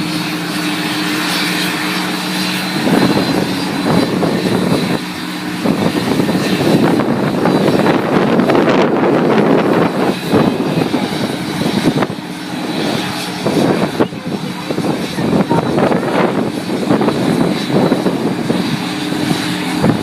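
Bombardier CRJ-200's GE CF34 turbofan engines starting up and running: a steady jet whine with a thin high tone over a rushing noise.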